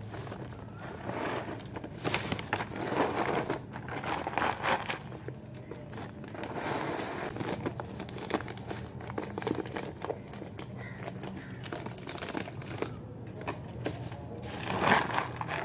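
Thin black plastic grow bag crinkling and rustling as hands open and handle it, with crumbly soil pouring and rattling into it. The sound comes in irregular rustling bursts.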